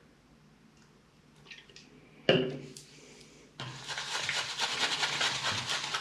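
A short squeak that falls in pitch about two seconds in, then a tap running steadily with water splashing from about three and a half seconds on, as make-up brushes are rinsed.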